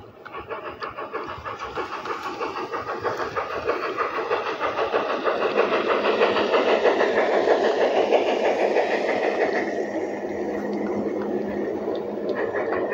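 LGB G-scale model steam locomotive and its train rolling along garden-railway track, a fast rattle of wheels on rail that grows louder as the locomotive comes close and passes, then eases a little as the coaches go by.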